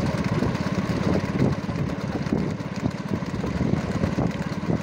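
Motorcycle engine running steadily with a fast, even beat.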